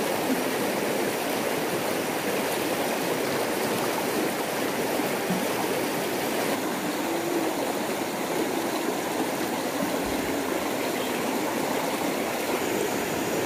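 A shallow, rocky river rushing over stones in a steady rush of water.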